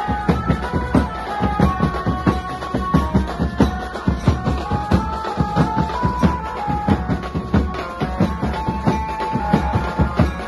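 Street procession band playing: many snare drums and large bass drums beat a fast, driving rhythm under a melody line that steps between a few held notes.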